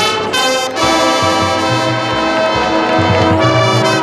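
Marching band brass section playing loud full chords: a short accented blast just after the start, a brief break, then a long held chord with low brass underneath.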